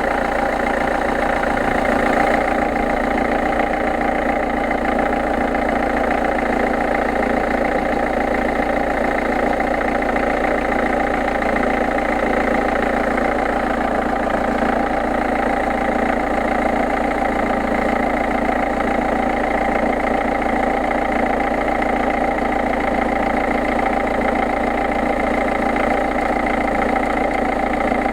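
PSA 2.0 HDi four-cylinder turbodiesel engine idling steadily, with a steady mid-pitched noise that the owner calls a bad noise.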